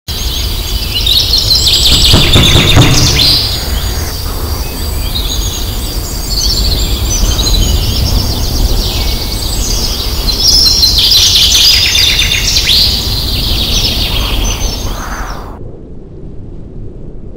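Many birds chirping and singing in overlapping calls and trills over a steady low rumble. The birdsong cuts off abruptly about fifteen seconds in, leaving only the low rumble.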